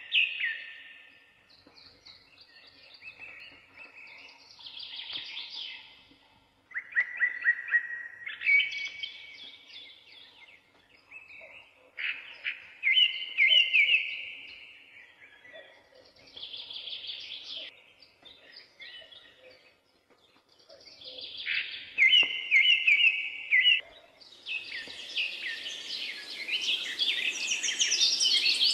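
Birdsong: separate phrases of quick, high chirps and trills a few seconds apart. A steady hiss comes in near the end.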